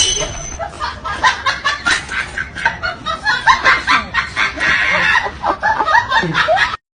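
Hens clucking: many short calls in quick succession.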